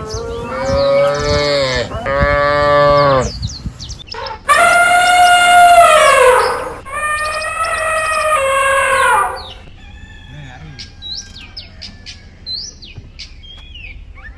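Cattle mooing: four long calls, the third, about four and a half seconds in, the loudest and falling in pitch at its end, with small birds chirping faintly throughout.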